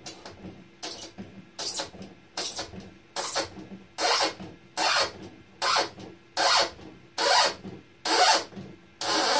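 A 3D-printed plastic screw anchor is turned by hand with a screwdriver into the edge of an XPS foam board. It grinds and squeaks through the foam in a stroke at each turn, about one every 0.8 s, and the strokes grow louder about four seconds in.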